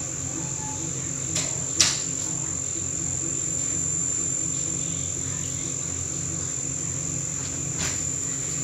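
Underwater treadmill running: a steady high-pitched machine whine over a low hum. A couple of sharp clicks come about a second and a half in, and another near the end.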